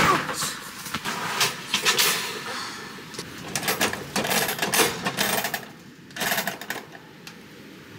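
Clicks and rattles from working the controls of a Camp27 kerosene camping heater, its wick knob being turned to ready it for lighting. The clatter thins out after about six and a half seconds.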